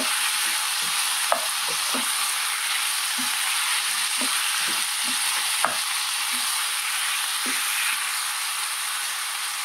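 Cubed chicken sizzling in oil in a nonstick frying pan while a wooden spoon stirs the spice powders through it, with two sharp clicks from the stirring.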